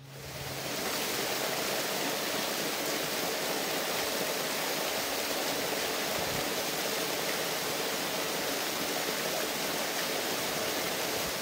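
Steady rushing of water pouring from a small concrete weir onto rocks, fading in over the first second.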